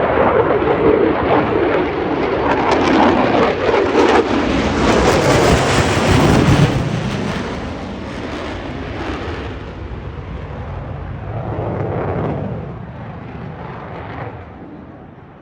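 F-35 fighter jet's engine passing by, loud at first, then fading over several seconds, with a smaller swell near the end.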